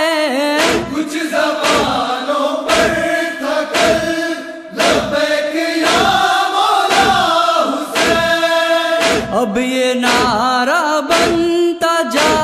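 A male chorus chanting an Urdu noha lament in unison, kept in time by a steady beat of hands striking chests (matam) about every two-thirds of a second.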